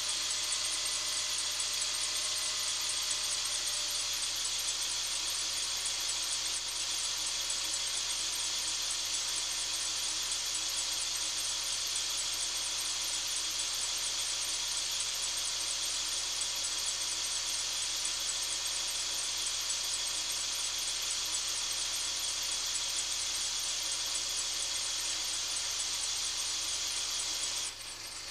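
Mercedes-Benz W246 M270 turbocharged four-cylinder engine running on a cold start, with a rapid, high-pitched 'chi-chi-chi-chi' ticking noise that the owner reports as abnormal. The treble is boosted by EQ, and the sound drops abruptly in level just before the end.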